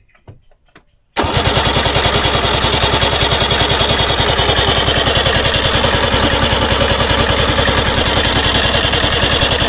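Trabant 601's two-cylinder two-stroke engine being cranked by a newly fitted starter motor, turning over with a fast, even pulsing but not firing. The cranking starts suddenly about a second in.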